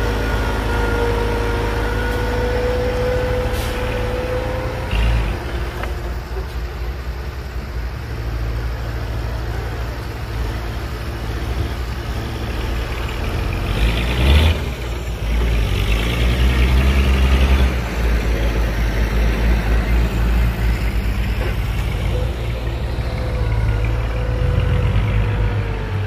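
Diesel engines of a D20 crawler bulldozer and a dump truck running under load, with a steady whine over the first few seconds and a short, sharp hiss about halfway through, like a truck's air brakes.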